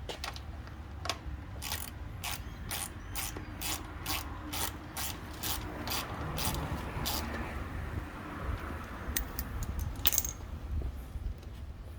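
Hand ratchet clicking in an even rhythm, about two and a half clicks a second, as a fender-flare screw is tightened by hand; the clicking stops about seven seconds in, followed by a few sharp clicks and a louder knock near the end.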